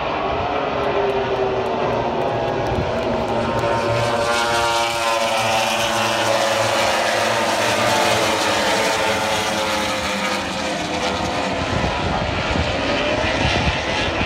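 A pack of Grand Prix racing motorcycles passing one after another, their engines overlapping in a continuous loud scream whose pitches slide up and down as each bike goes by.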